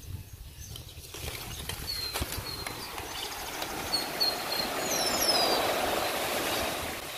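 Small waves washing onto a sandy beach, the surf hiss swelling to a peak about five seconds in and easing off, over a low rumble of wind on the microphone. Birds chirp a few times, with a couple of short descending calls partway through.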